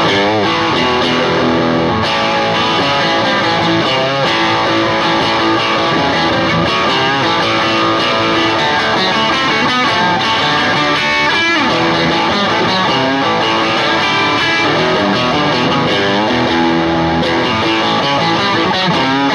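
Infinite Telecaster electric guitar played through an amp in its normal Telecaster setting: a continuous riff, crisp and cutting yet thick, with a hard, punchy attack.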